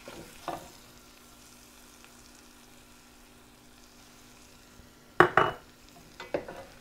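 A spatula stirring and scraping through beef and vegetables in an enamelled cast-iron Dutch oven as they are tossed in flour. It gives a few short knocks against the pot, the loudest a pair about five seconds in.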